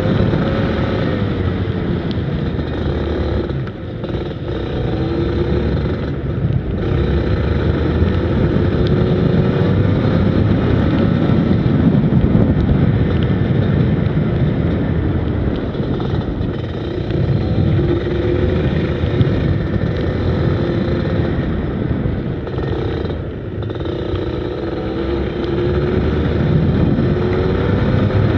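Go-kart engine heard onboard, its revs rising and falling continuously as the kart accelerates down straights and lifts off for corners, with a few short drops in engine note.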